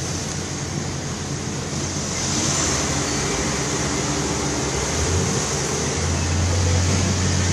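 Engine running under a steady rushing noise, with a low hum that grows stronger about five seconds in.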